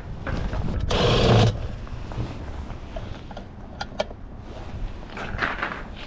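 Plastic top panel of a Yamada YWM-T60H1 top-loading washing machine being handled and lowered back into place. A scraping rustle comes about a second in, another shorter one near the end, and scattered light clicks between.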